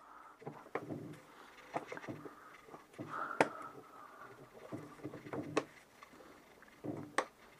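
Irregular clicks and knocks of a Citroën 2CV's air box being handled and pressed into place on the engine, with faint rubbing of gloved hands on the parts; the sharpest click comes about halfway through.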